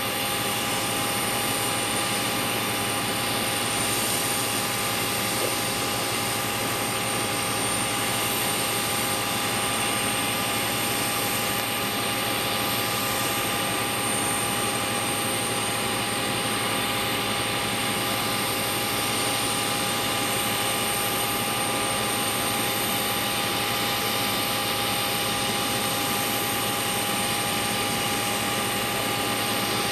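Steady jet turbine whine from a Boeing 737-800, with several high tones held constant over an even rushing noise and no change in pitch.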